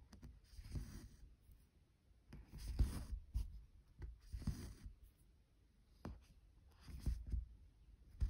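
Cross-stitch thread being drawn through 25-count evenweave fabric, stitch after stitch: a soft swish every second or two, with a few light clicks between.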